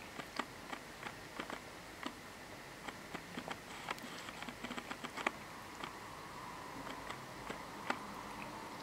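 Cat grooming, licking and nibbling its paw: a run of irregular small wet clicks, quickest around the middle.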